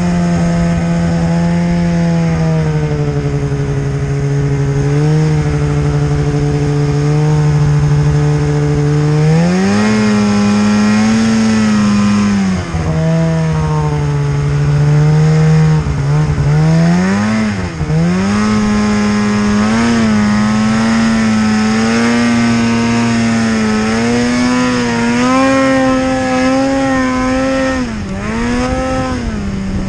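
Snowmobile engine running under throttle, its pitch steady for the first several seconds, then rising and falling again and again as the throttle is worked, with a few quick drops in the middle.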